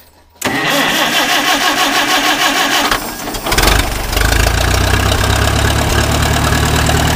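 International Harvester 350 Utility tractor's 175-cubic-inch four-cylinder gasoline engine being started warm without the choke. The starter cranks from about half a second in for roughly two and a half seconds, the engine catches about three and a half seconds in, and it settles into a steady idle.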